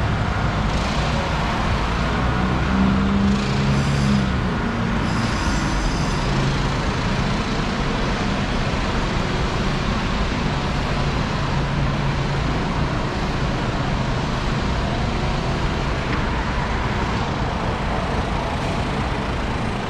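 Steady road traffic on a busy city street, with vehicles passing close by. A passing engine's low hum rises out of it a few seconds in and again about halfway through.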